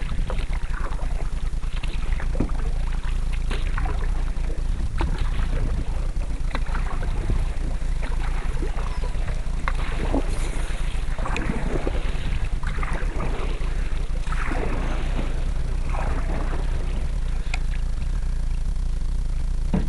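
Canoe paddles dipping and pulling through water in irregular strokes, short splashes about every second or two, over a steady low rumble of wind on the microphone.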